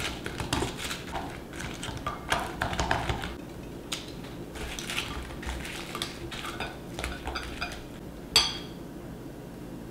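Kitchen tongs clinking and scraping against glass mixing bowls as chicken wings are tossed in sauce. A quick run of clicks comes over the first three seconds, then sparser taps, with one sharp ringing clink a little after eight seconds in.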